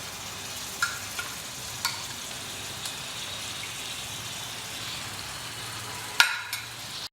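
Marinated mutton sizzling as it goes into a hot pan of onion and tomato fried in ghee, a steady hiss broken by a few sharp knocks of a utensil on the pan, the loudest near the end.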